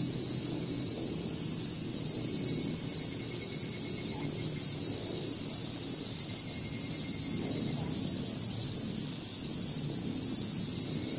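Cicada chorus: a steady, high-pitched drone-like hiss that holds an even level throughout, with a faint low murmur underneath.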